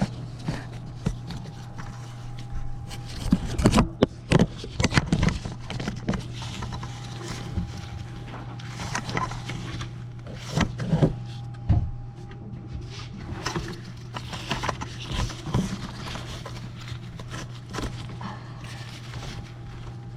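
Irregular clicks, knocks and scrapes of hands and tools working on the rear spark plugs and plug wires of a van's engine, over a steady low hum. The knocks are loudest about three to five seconds in and again about eleven seconds in.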